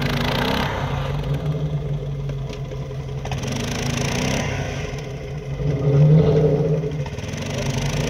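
A vehicle engine runs under towing load and revs up three times, near the start, about halfway and about two-thirds through, while an ATV on a tow strap tries to pull a Jeep Grand Cherokee out of deep snow.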